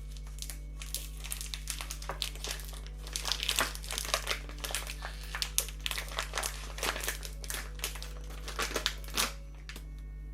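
Crinkling and crackling of something being handled, a quick irregular run of small sharp crackles that stops shortly before the end, over faint background music.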